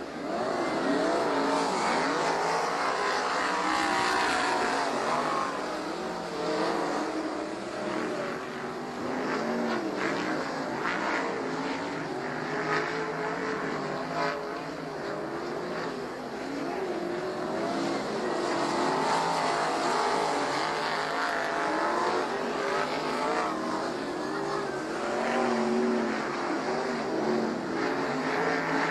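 Winged dirt-track sprint cars' V8 engines running on the track, several engines overlapping, their pitch rising and falling as the cars go around.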